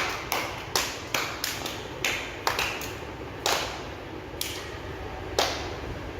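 A group of students clapping in uneven claps that start thick, then thin out to a few stray claps, the last about five seconds in.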